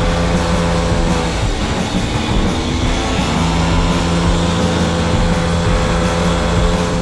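Pocket bike engines running hard during a race, a steady high buzzing note.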